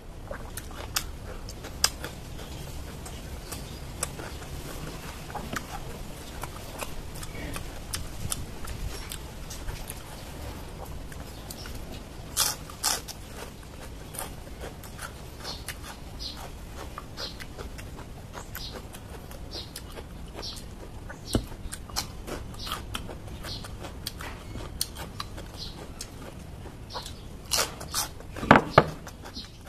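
Close eating sounds: a person chewing and crunching raw vegetables, with many small crisp clicks and wet mouth sounds, and a few louder bursts partway through and near the end.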